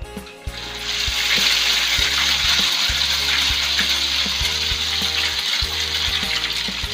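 Beaten egg poured into hot cooking oil in a wok, sizzling and frying; the sizzle starts about a second in and carries on steadily.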